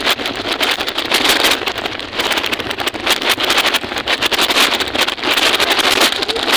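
Loud wind buffeting and rustling on the microphone while moving, a steady rough crackle without pause.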